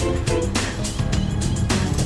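Music with a beat and pitched melodic notes.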